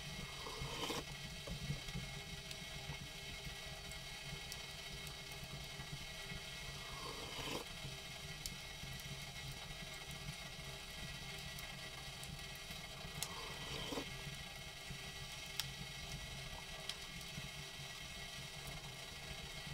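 A spoon scraping and clinking against a metal camping pot during eating, a few times about six seconds apart, with scattered small sharp clicks over a low steady background hum.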